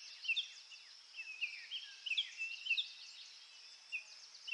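Songbirds singing in woodland: a steady run of short, high chirps and quick downward-sliding whistles, several a second.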